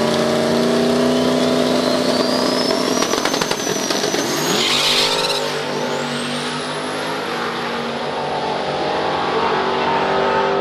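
Drag-race engines revving hard at the starting line, then launching and accelerating away down the strip, with a high whine rising in pitch as they pull.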